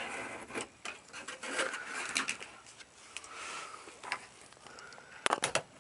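Handling noise as a refrigerator's rear access cover is pulled off and set aside: scraping and rattling with scattered clicks, then a quick run of sharp clacks near the end.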